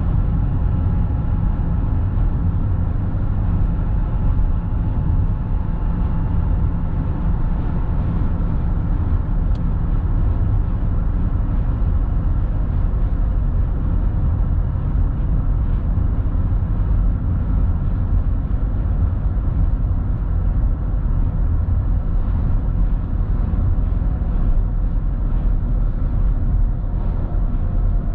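Car driving steadily, heard from inside the cabin: an even low rumble of road and engine noise with a few faint steady tones above it.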